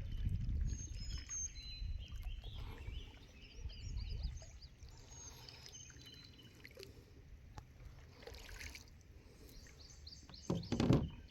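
Wind rumbling on the microphone for the first few seconds, with small birds chirping. Near the end there is a brief louder knock or splash.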